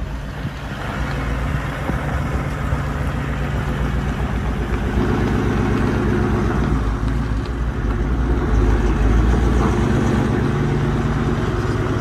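A four-wheel drive's engine running at low speed on a dirt track, with tyre and road noise, heard from the cab with a window open. The engine note steps up about halfway through.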